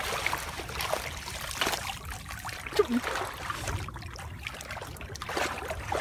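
Water trickling and sloshing as a wire-mesh fish trap is lifted and handled in shallow water, with a sharp knock about halfway through.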